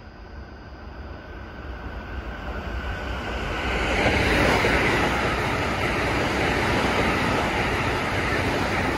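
Keikyu electric train passing through a station without stopping: a rush of wheel and track noise that builds over the first four seconds and stays loud as the cars go by.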